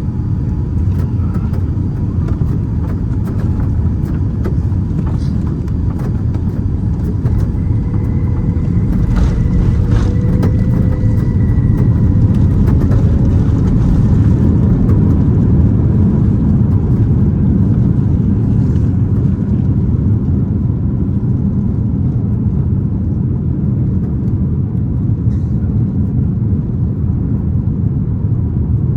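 Boeing 787-9 cabin noise heard from inside the economy cabin: a loud, steady low rumble of engines and airflow that swells a little midway, with a faint whine on top and a single click near the middle.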